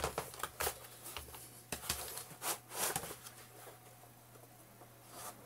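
Hands working a carbon freediving fin blade into its rubber foot pocket: a run of small knocks and rubbing, busiest in the first three seconds, then quieter handling.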